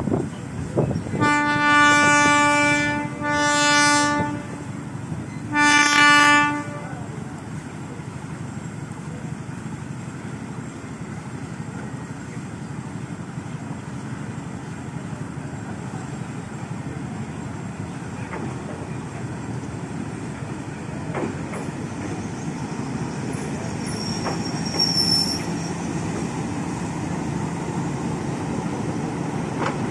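Diesel locomotive horn sounding three blasts in the first seven seconds: two long ones and a shorter third. The locomotive's engine then runs steadily as it rolls slowly closer, with a brief high squeal from its wheels or brakes near the end.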